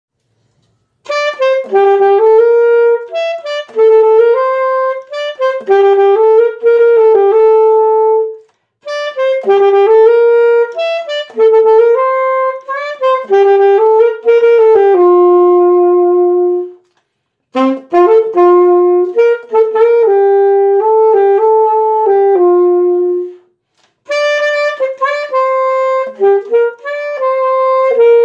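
Solo saxophone playing a melody in D major, note by note, in four phrases with short breaks for breath between them.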